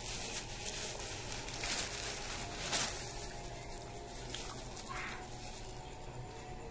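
Clear plastic bag crinkling and rustling close to the microphone, with a louder crackle about a third of the way in and a shorter one later.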